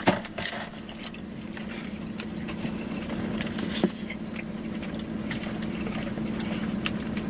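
Steady low hum of a car idling, heard from inside the cabin, with scattered small clicks and rustles of food being handled and eaten; one sharper click comes about four seconds in.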